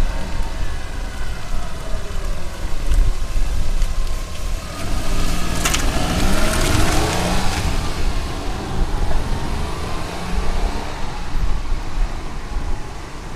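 1998 Daihatsu Hijet mini dump truck's 660cc engine driving off and passing close by, the engine note rising and falling and loudest about halfway through, with one sharp clack just before the pass.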